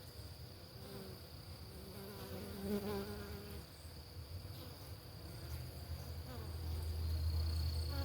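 Italian honeybees buzzing around the hive entrance: a continuous hum with single bees' buzzes passing close to the microphone, growing louder near the end. A thin, steady high tone runs underneath.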